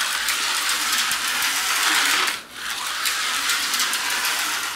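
Tyco 440-X2 HO slot car running flat out around the track, with a steady high-pitched mechanical buzz from its small motor, gears and pickups. The buzz drops out briefly about halfway through.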